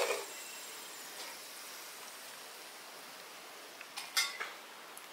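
Quiet kitchen with a faint steady hiss, broken by a couple of light clicks at the start and a short cluster of light clicks and clatter about four seconds in.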